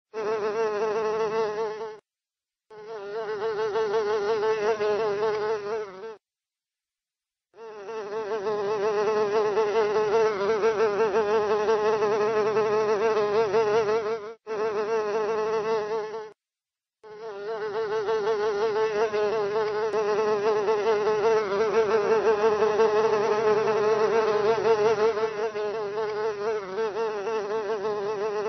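A fly buzzing in flight: a steady, mid-pitched buzz that wavers slightly. It comes in five bouts, each cutting off abruptly into dead silence: about two seconds in, near six seconds, briefly at about fourteen and a half seconds, and at sixteen seconds.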